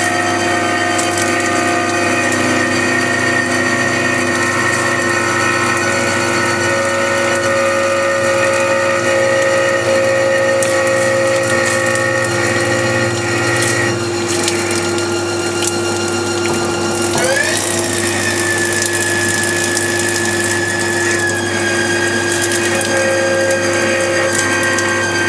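Haas TL2 CNC lathe running: a steady machine whine with several tones and cutting noise. The pitch shifts a few times, with a sharp rising whine about 17 seconds in.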